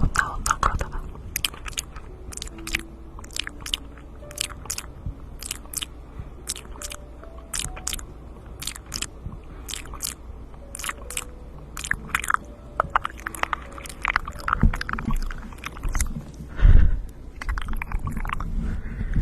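Close-miked ASMR mouth sounds: a run of sharp, wet tongue clicks and lip smacks, one or two a second, with a couple of louder, deeper mouth sounds late on.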